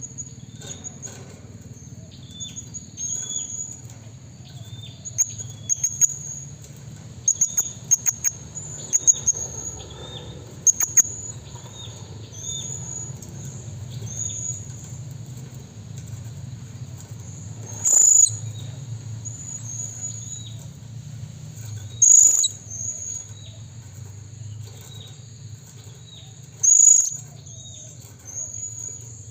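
Blue-crowned hanging parrot calling: a string of short, very high-pitched notes repeated over and over, with three much louder calls in the second half, over a steady low hum.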